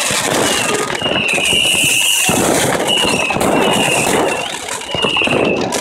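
Whistling fireworks: about five high, shrill whistles, each up to about a second long and nearly level in pitch, over continuous crackling from other fireworks.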